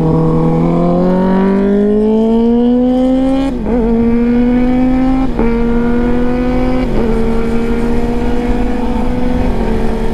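Kawasaki Versys-X 300's parallel-twin engine accelerating hard from a stop, its pitch climbing through each gear, with quick upshifts about three and a half, five and seven seconds in, each dropping the pitch before it rises again.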